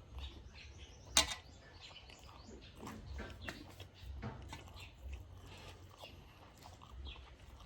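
A person eating, with scattered small clicks and crunches of chewing and one sharp click about a second in.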